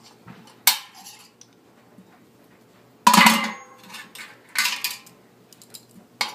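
Metal tool clinking and scraping against a Sankey keg's lock ring while prying it out of its groove: a few sharp clinks, the loudest about three seconds in.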